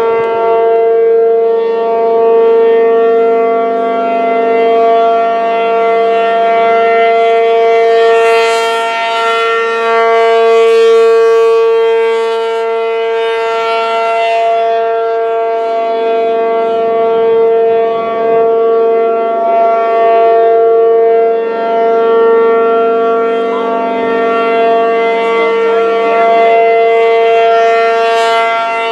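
P-50 outdoor warning siren sounding one steady, loud tone without let-up. It is stuck on after a monthly test, a fault put down to a welded relay in its controls.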